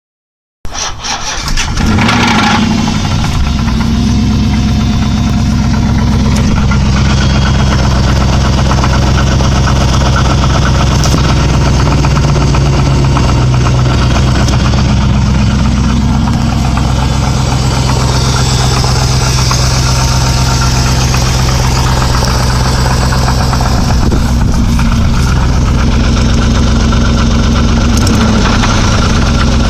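2005 Chrysler 300C's 5.7-litre Hemi V8 starting about half a second in, catching within a second or two, then idling steadily, with the knock that the owner reports.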